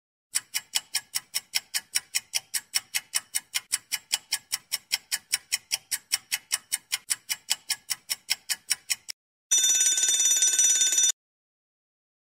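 Quiz countdown timer sound effect: a clock ticking fast and evenly, about five ticks a second, for about nine seconds, then a bell ringing for about a second and a half to mark the end of the answer time.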